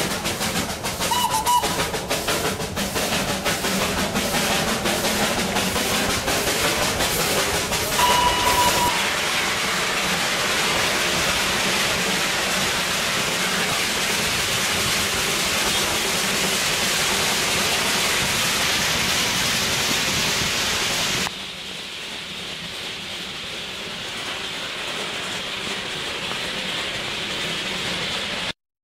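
Darjeeling Himalayan Railway narrow-gauge toy train running, with rail clatter for the first several seconds and two short toots from the locomotive, about a second in and about eight seconds in. After that it settles into a steady rushing noise, which drops suddenly to a quieter level about twenty seconds in.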